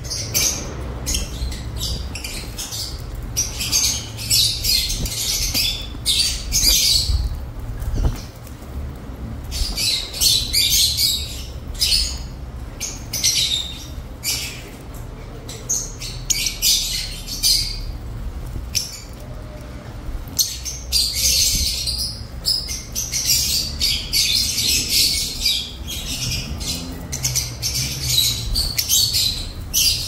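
A flock of Fischer's and masked lovebirds chattering, with shrill, harsh squawks coming in dense clusters a few seconds long and short lulls between. A low steady rumble sits underneath.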